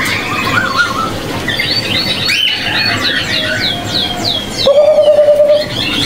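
A pair of caged Bali mynas calling: a quick run of high, falling whistle notes, then a loud steady whistle about five seconds in. The pair is offered as actively singing (gacor).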